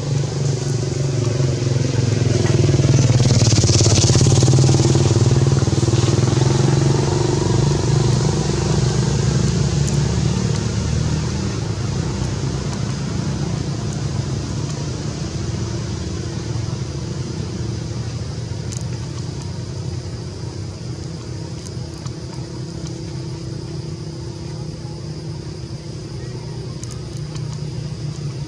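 A motor engine running steadily, louder a few seconds in and then slowly fading, with a steady high-pitched hiss above it.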